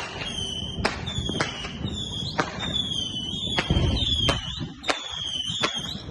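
Consumer fireworks going off: a string of sharp bangs, roughly one every half second to a second, over repeated high whistling tones that fall slightly in pitch.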